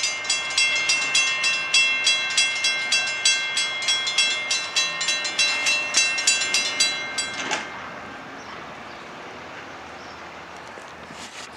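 Railroad grade-crossing warning bell ringing at about three strokes a second, signalling an approaching train, then stopping abruptly about seven and a half seconds in. A quieter steady background noise remains after it.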